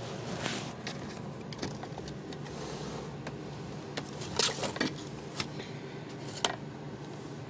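Handling noise: scattered light clicks and rustles over a steady low hum, with the loudest rustles about four and a half and six and a half seconds in.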